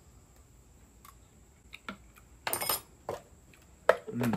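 A metal spoon clinking and scraping against a plastic food processor bowl while stirring salsa: a few light clicks, then one longer scrape about halfway through. Near the end the processor lid is set back on the bowl with a sharp click.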